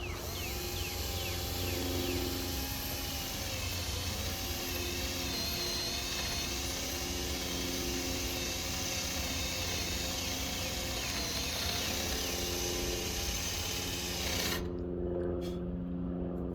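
Power drill running with its bit grinding into the steel of a utility trailer, a steady grinding hiss with a wavering motor whine, stopping abruptly near the end. The bit is cutting poorly.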